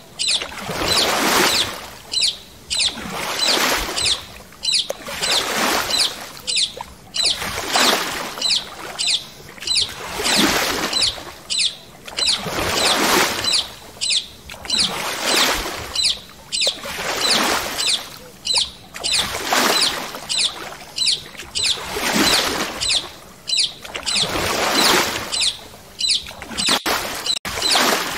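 Paddle strokes swishing through water in a steady rhythm, about one every second and a half, each with small splashy ticks.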